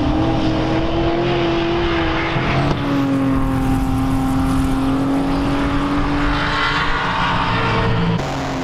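Several racing touring cars' engines running hard at high revs as a pack drives through a corner, their engine notes steady with only small shifts in pitch.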